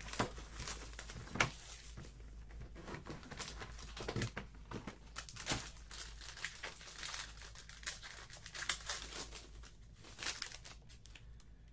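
Plastic wrapping crinkling and tearing off a sealed box of trading cards, with irregular rustles and light clicks as the box is opened and handled.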